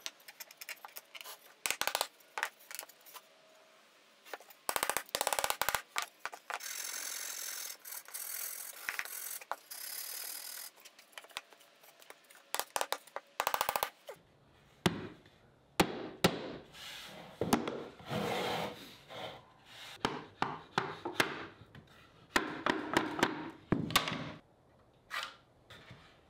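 Hand work on pine boards, with a run of rapid scraping strokes to clean up tight spots. It is followed by irregular wooden knocks and taps as the pieces are fitted together.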